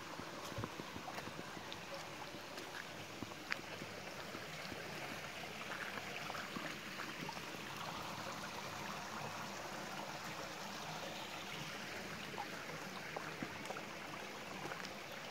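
Mountain stream water running steadily, with a few faint scattered clicks over it.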